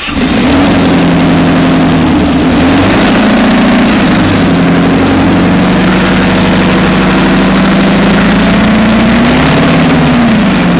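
Large multi-cylinder industrial engine running loud and steady, with a brief rise and fall in speed near the end.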